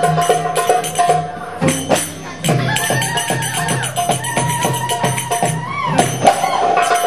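Live Arabic band music for belly dance: a quick, even hand-percussion rhythm under held melodic notes. The music drops back briefly about two seconds in, then picks up again.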